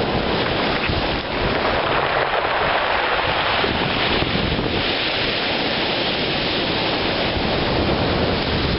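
Surf washing up a cobble beach and drawing back, the backwash tumbling smooth rounded stones against each other in a steady stony rush. Wind buffets the microphone underneath.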